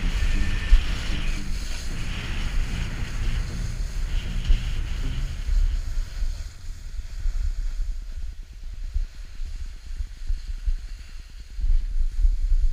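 Wind rumbling on an action camera's microphone as a skier runs down a groomed slope, with the hiss of skis sliding on packed snow. The hiss fades about six seconds in, while the low wind rumble carries on.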